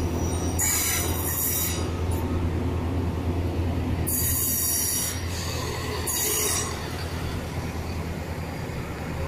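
Wheels of a slow-moving Chiltern Railways diesel train squealing on the curving station track in three high bursts, over a steady low diesel engine hum.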